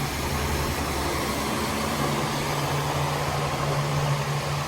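Electric fan blowing steadily: a constant motor hum under an even rush of air.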